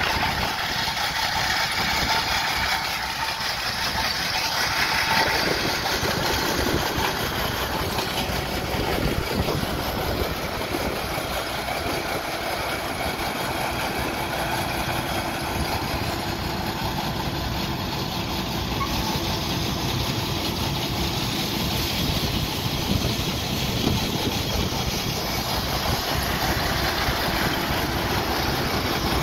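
Case IH 2388 Axial-Flow combine's diesel engine idling steadily.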